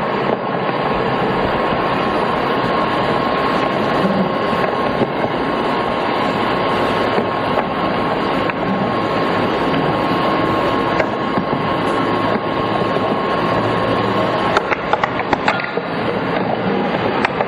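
Steady hiss-like background noise from camcorder footage of the night sky played back over a sound system, with a thin steady tone that stops near the end and then a short run of clicks.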